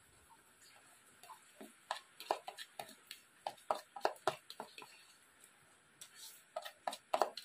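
Chopsticks clicking against a rice bowl during eating: short, light, irregular clicks, coming in a run from about two seconds in and again near the end.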